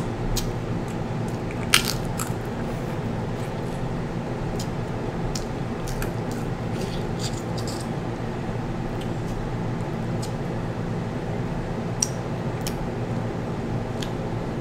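Scattered sharp clicks and cracks of snow crab shell being handled and picked apart while eating, the loudest about two seconds in, over a steady background hum.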